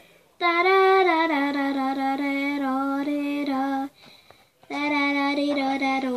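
A young girl singing a melody unaccompanied, holding long notes in two phrases with a short break about four seconds in.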